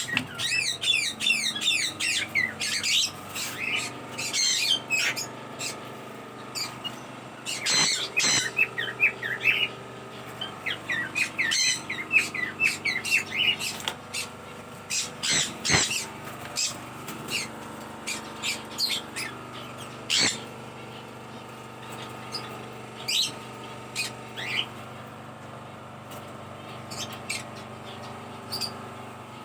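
Pet parrots chirping, many quick high calls close together for the first half, then fewer and more spaced out.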